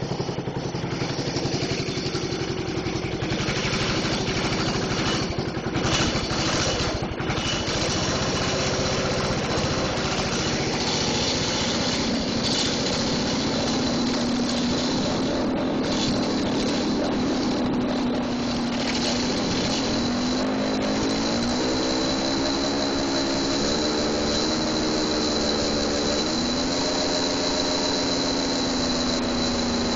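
The gasoline engine of a gas-powered Federal Signal 3T22 siren runs loud and steady. With the rotor brake released, the siren's chopper spins up from about the middle onward, giving a low chord-like wail that climbs slowly in steps.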